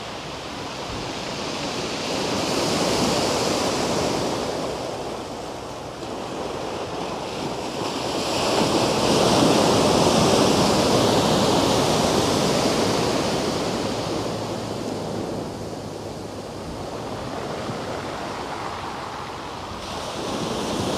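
Sea waves breaking and washing against the foot of a sea wall, in two surges: one about two seconds in, and a louder, longer one from about eight seconds in that slowly dies away.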